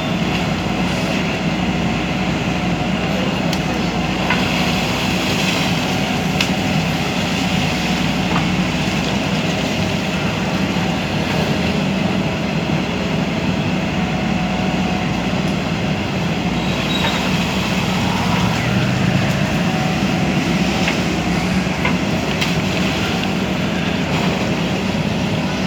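Backhoe loader's diesel engine running steadily under work, with a few short metallic knocks scattered through.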